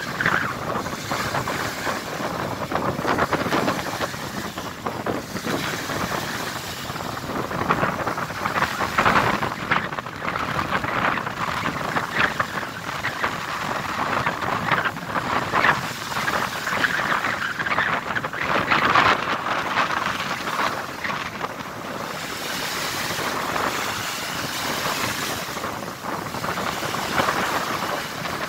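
Choppy, wind-driven sea splashing and rushing, with gusts of wind on the microphone; a continuous, uneven wash of noise that swells and eases.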